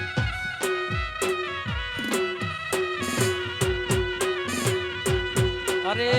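Instrumental Gujarati folk raas music: a steady drum beat of roughly two hits a second under a sustained, ornamented melody line.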